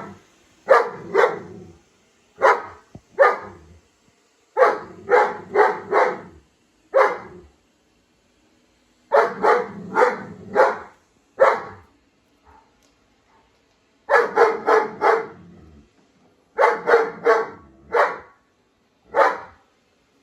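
German Shepherd barking at a robot vacuum cleaner: loud barks in quick runs of one to five, with pauses of one to three seconds between runs, about two dozen barks in all.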